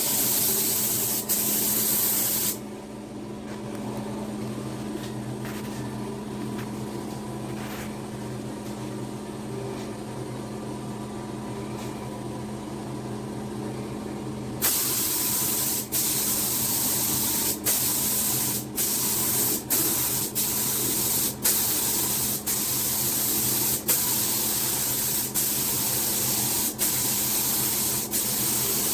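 Paint spraying: a steady hiss of paint being sprayed that stops for about twelve seconds early on, then resumes, cut by many brief pauses each second or two as the spray is released and pressed again. A low steady hum runs underneath.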